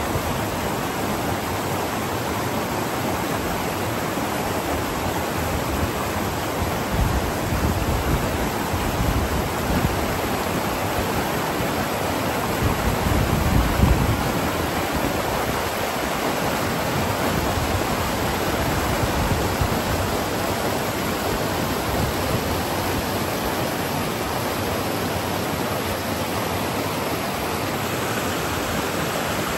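River rapids rushing steadily as water pours over and between rocks, with a few stronger low rumbles about a quarter and halfway through.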